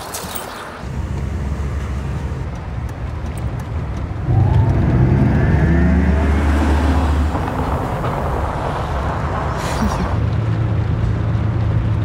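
Car engine running, heard from inside the cabin. About four seconds in it gets louder and rises in pitch for a few seconds as the car accelerates, then settles to a steady hum. There is a single click near the end.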